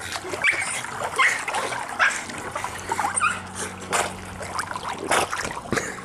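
Boston terrier whining in several short, high whimpers, with pool water splashing and trickling.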